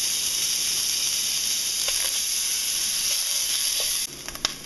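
A raw block of lean ground turkey sizzling in a hot pan sprayed with olive oil, a steady hiss that cuts off sharply about four seconds in.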